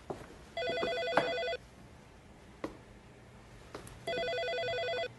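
Telephone ringing with an electronic warbling ring: two rings, each about a second long, roughly three and a half seconds apart, with a few faint clicks between them.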